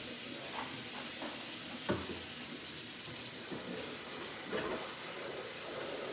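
A steady hiss, with a faint knock about two seconds in and another a little past the middle.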